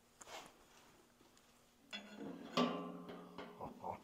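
Steel square-tube tank frame knocking and scraping against a steel fuel tank as it is fitted. It starts about halfway through with a few sharp knocks and a faint metallic ring.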